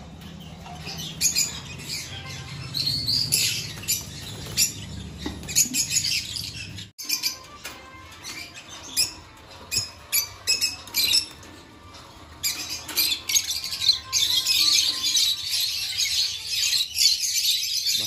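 A roomful of caged lovebirds chirping and squawking in many short, sharp calls, busiest near the end.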